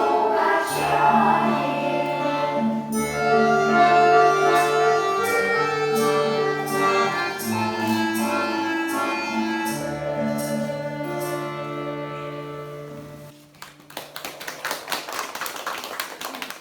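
Russian folk-instrument ensemble playing the final bars of a folk song, with held chords over a steady beat; the music ends about three-quarters of the way through and applause follows.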